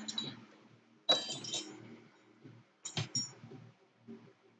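Metal hand tools and small steel rifle parts clinking against each other and the bench. There are two sharp clinks with a brief ring, about a second in and again about three seconds in, between quieter handling noise.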